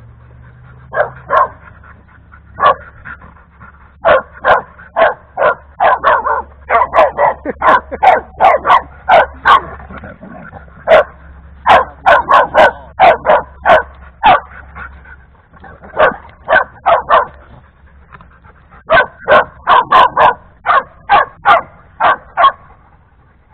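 Dogs play-fighting, with a dog barking in quick runs of short, sharp barks and brief pauses between the runs.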